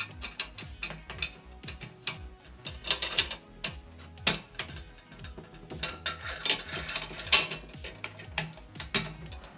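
Metal parts of a chainsaw mill being handled and fastened: irregular clicks, knocks and rattles, with a short stretch of scraping a little past halfway.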